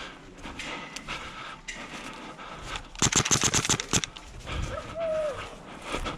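Airsoft gun firing one rapid full-auto burst lasting about a second, roughly a dozen quick shots, about three seconds in. A short rising-and-falling tonal call follows about a second later, among scattered clicks and rustling.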